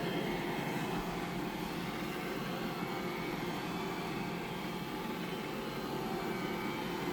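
iRobot Roomba e5 robot vacuum running a spot-clean cycle, its vacuum motor and brushes making a steady whir with a faint hum.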